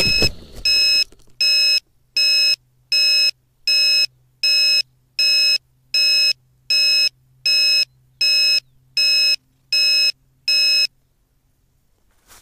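Electronic beeps from a downed FPV racing quadcopter lying in the grass: about thirteen short, high beeps, roughly three every two seconds, over a faint low hum. The beeping stops a second or so before the end. It works as an alarm that helps the pilot find the quad.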